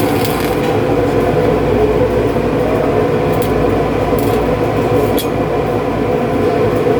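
Steady, loud mechanical drone with a constant hum, like heavy machinery running.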